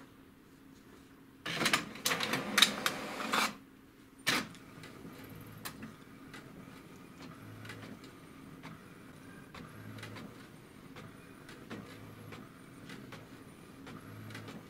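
HP DeskJet 2130 inkjet printer starting a print job: a loud whirring burst of its motors for about two seconds, then a click, then the print carriage shuttling back and forth with soft, regular ticking as it prints the page.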